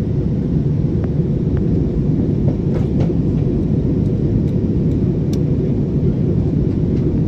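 Steady, even drone of an airliner cabin in flight, engines and airflow heavy in the low end, with a few faint clicks over it.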